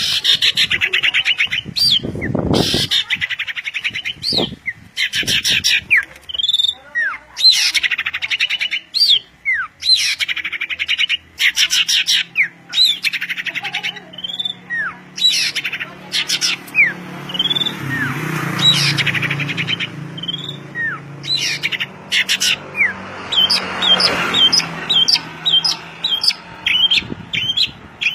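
Songbird singing loudly and continuously: fast trills alternating with short down-slurred whistles, and near the end a quick run of sharp chips.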